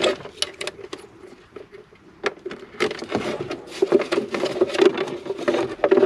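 Clicks and taps of plastic wiring connectors being unplugged, then from about three seconds in a continuous scraping and rustling of the hard plastic glove box being worked out of the Lexus IS F's dashboard.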